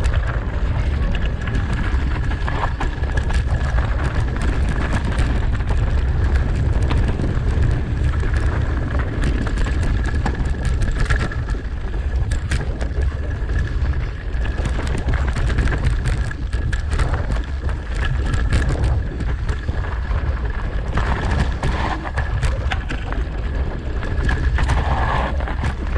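Mountain bike riding down a dirt forest trail: wind rushing over the microphone and tyres rolling on dirt and dry leaves, with frequent clicks and rattles from the bike over bumps. A thin steady high tone runs through the first half.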